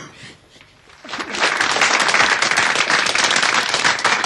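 Audience applauding, starting about a second in and continuing as a dense, steady clatter of many hands clapping.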